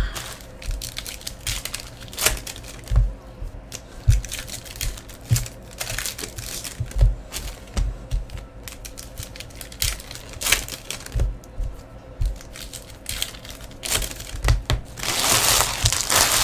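Foil trading-card pack wrappers being torn and crinkled, and cards tapped and shuffled on a table, in irregular clicks and light knocks. A longer stretch of crumpling comes near the end.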